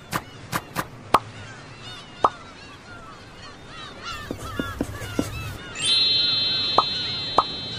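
Many birds calling at once in short overlapping chirps, broken by sharp pops and clicks. About three-quarters of the way in, a bright chime begins abruptly, rings as a steady chord and slowly fades.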